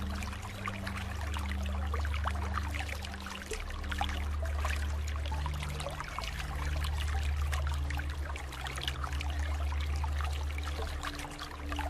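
Water flowing and trickling steadily, a continuous splashing babble, over low steady tones that shift pitch every few seconds.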